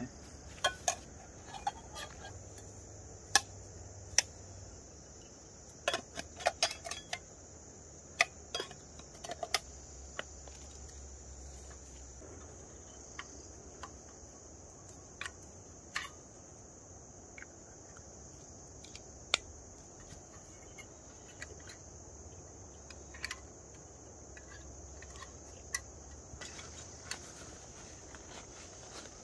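A steady high insect chorus of trilling crickets. Over it come scattered sharp clicks and clinks of metal camping cookware, a portable gas stove and its butane canister being taken apart and packed away, mostly in the first ten seconds.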